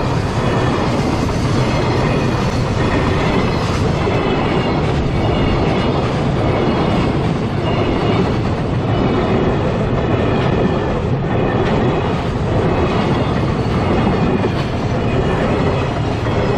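A freight train hauled by an EF210 electric locomotive rolling past at a level crossing: a steady, loud rumble of wagons with the clickety-clack of wheels over rail joints.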